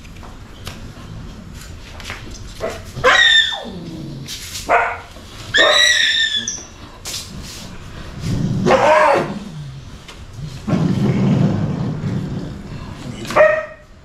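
Standard poodles yelping and barking during a held mating, several separate calls a second or two apart, some of them sliding down in pitch.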